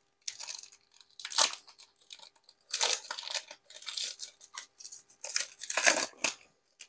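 A trading-card pack's wrapper being torn open and crinkled by hand, in a series of short, irregular crackling rips.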